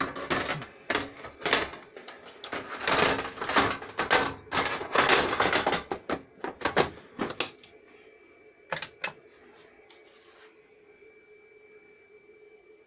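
Rapid clicking and clattering of hands working on an HP ProLiant DL360p Gen8 rack server for about seven seconds, as it is readied to power up. After that a faint steady hum with a thin whine sets in, broken by two sharp clicks near the middle.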